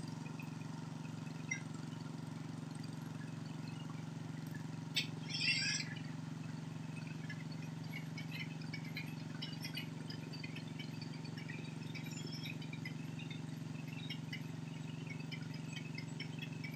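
Steady low hum of an idling engine, with scattered high chirps and a brief burst of noise about five seconds in.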